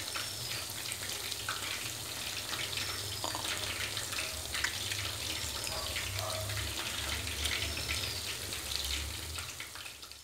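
Chicken wings deep-frying in a wok of hot oil: a steady, dense sizzle and crackle of bubbling oil as the wings cook through on their underside. The sizzle fades away near the end.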